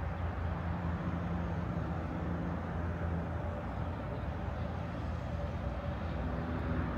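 A steady low engine rumble with a hum of a few steady low tones, with no sudden events.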